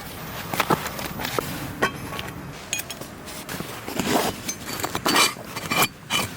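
Metal cookware and utensils clinking and knocking, in a series of irregular light clinks and taps.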